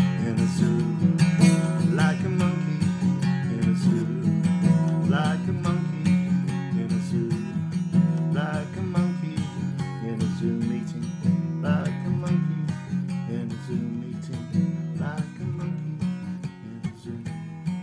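Acoustic guitar strummed in a steady rhythm, growing a little quieter near the end.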